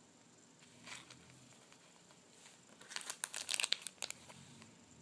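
Plastic packaging of squishies crinkling as it is handled: a brief rustle about a second in, then a quick burst of crinkles between about three and four seconds in.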